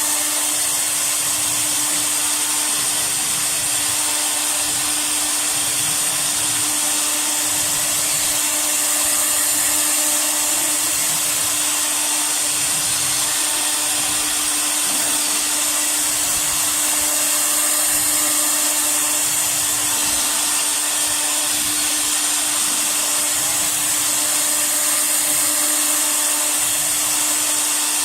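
Air-cooled spindle of a CNC router running at high speed while carving a 3D design into MDF: a steady high whine and hiss that holds level throughout.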